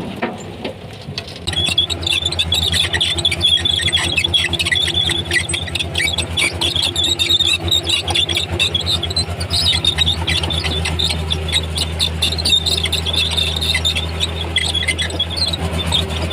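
Komatsu D31P crawler bulldozer working: its diesel engine runs with a steady low drone while the steel tracks squeal and squeak continuously as the dozer moves.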